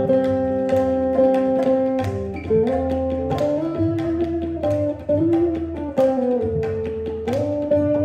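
Live Indian fusion music: a tabla is played in quick strokes under a guitar, while a sustained melody holds long notes and slides between pitches.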